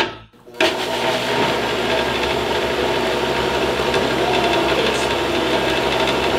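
A click, then a countertop blender starts about half a second in and runs steadily at full speed, blending water, lemon juice and durian flesh into a thick liquid.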